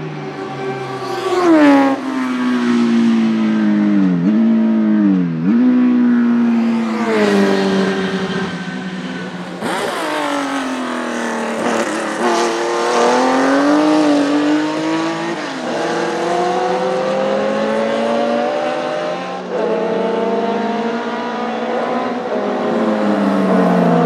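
Historic race car engines passing one after another: pitch drops in quick downshifts under braking, then long rising revs as the cars accelerate away.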